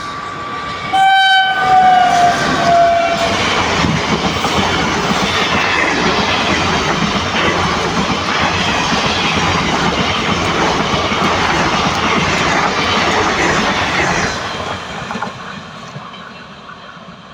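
A passing Indian Railways train sounds its horn for about two seconds, the pitch sliding slightly down, then rolls by with loud wheel and rail noise before fading away near the end.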